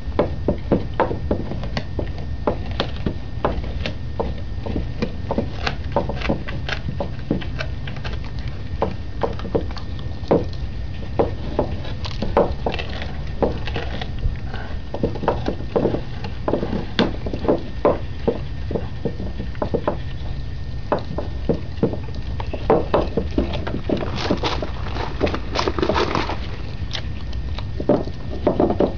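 Dog chewing and gnawing a raw meaty bone: irregular wet crunches and sharp cracks of teeth on bone, a few a second and busiest near the end, over a steady low rumble.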